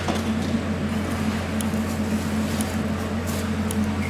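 A steady low hum with a few faint clicks and scrapes over it.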